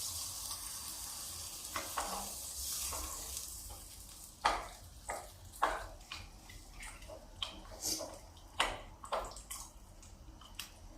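A hot pot of stew sizzles, the hiss fading over the first few seconds as water goes in. Then a utensil clinks sharply against the pot a dozen or so times as the stew is stirred.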